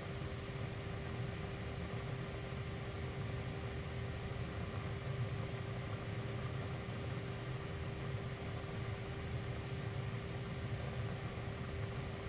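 Steady riding noise from a 2020 Can-Am Ryker 900 at cruising speed: an even low engine drone with one constant tone, under a haze of wind and road noise.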